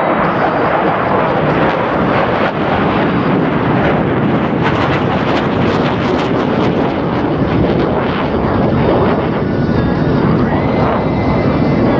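Loud jet noise from Blue Angels F/A-18 Super Hornets in flight: a steady, dense rush with crackling that is strongest about four to seven seconds in.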